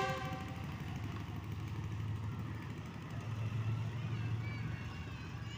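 Diesel locomotive horn dying away in the first moment, then a steady low engine drone from the approaching locomotive and motorcycles at the level crossing, swelling a little around the middle.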